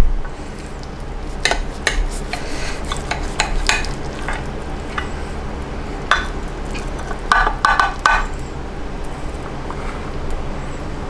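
Metal utensil scraping and clinking against a baking pan and plate in scattered bursts as a casserole is cut and served.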